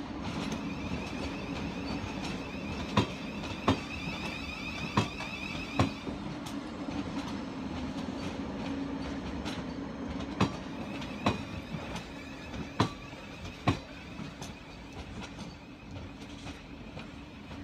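Thameslink Class 700 electric multiple unit rolling slowly over points and rail joints: wheels clack in pairs, about a second apart, every couple of seconds, over a steady low hum. A high electric whine from the train runs through most of the first twelve seconds.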